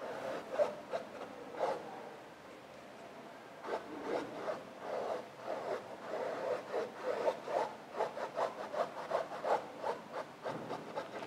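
Paintbrush bristles rubbing acrylic paint across a stretched canvas in scratchy strokes. There are a few separate strokes at first, then a brief lull, then quick back-and-forth strokes of about three a second in the second half.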